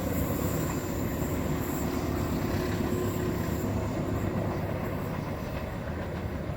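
Passenger train running past: a steady rumble of wheels on rail that slowly eases off.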